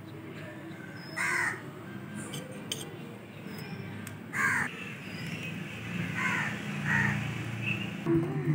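Crows cawing: four short harsh caws, one about a second in, one past the middle and two close together later. Music comes in near the end.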